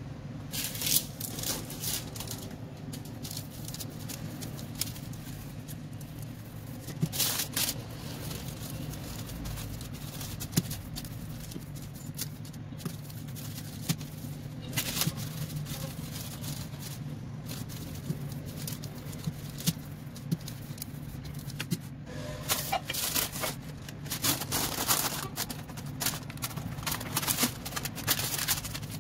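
Parchment paper rustling and crinkling while a wooden rolling pin rolls shortcrust tart dough. The handling noise comes in scattered bursts, busiest near the end, over a steady low hum.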